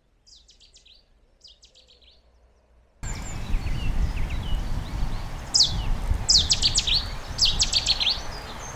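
A songbird singing short, explosive bursts of rapid high notes: two faint phrases, then about three seconds in the song turns much louder, with three more bursts over a steady hiss and low rumble of rain and wind on the microphone.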